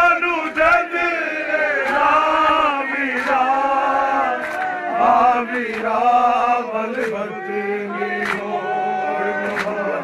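Men's voices reciting a noha (Shia lament) in a slow, unison chant. Sharp slaps come about once a second: matam, hands striking bare chests in time with the lament.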